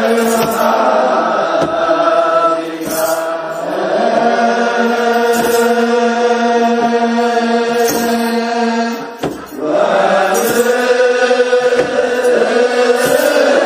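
Ethiopian Orthodox Tewahedo debteras chanting a Fasika (Easter) wereb together in long held notes, with a kebero drum beaten at intervals of a second or two.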